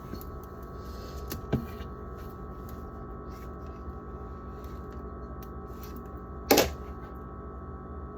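Condiment bottles and food containers being handled and set down: a few light clicks and knocks over a steady hum, with one sharper knock late on.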